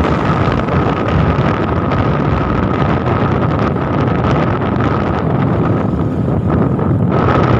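Steady wind rush on the microphone and road noise from a vehicle moving at speed, with a thin steady whine over it.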